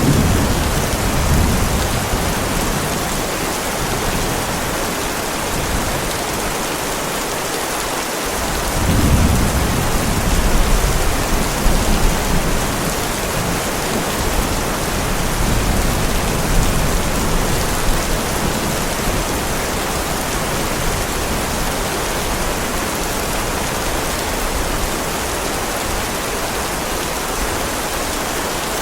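Heavy rain falling steadily throughout. A thunder rumble trails off in the first second or two, and a louder roll of thunder comes about nine seconds in, fading over several seconds.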